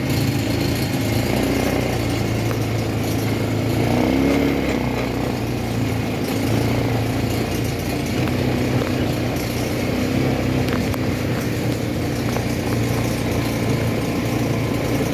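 ATV engine running steadily, its note bending up and back down briefly about four seconds in.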